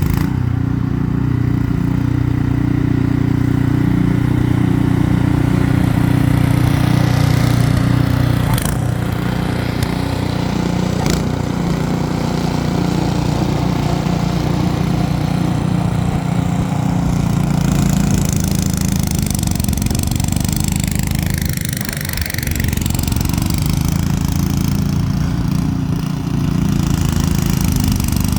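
Ariens 28-inch two-stage snowblower's single-cylinder engine running steadily under load as it clears a snowbank of wet, heavy snow. Its level dips briefly about a third of the way in and again later, with a couple of sharp clicks near the first dip.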